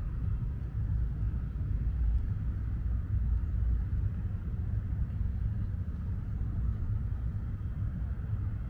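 Wind buffeting the microphone: an uneven low rumble that keeps flickering in gusts, over faint outdoor hiss.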